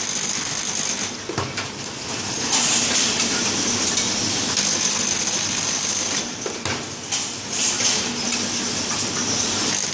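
Stick-bundle labeling machine running: a steady mechanical hiss with a few sharp clicks from its moving parts.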